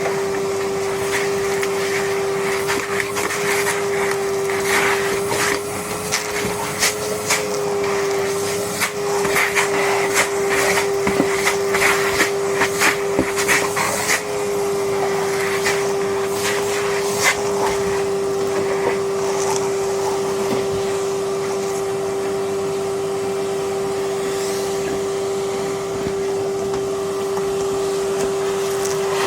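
Numatic Henry Xtra vacuum cleaner running with a steady motor whine. Through the first half or so, many sharp clicks and knocks sound over it, then it runs on evenly.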